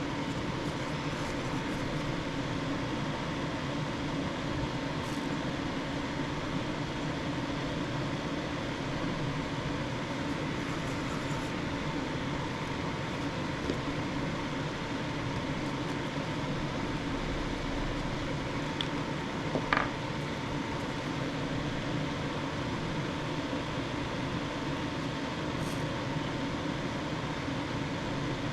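A steady mechanical hum with a constant whine, like a running fan, with one short click about twenty seconds in.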